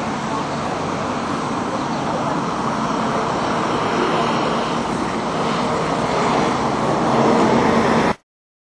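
Steady rush of airflow over the microphone during a paraglider flight, with a faint steady hum beneath it; it cuts off suddenly near the end.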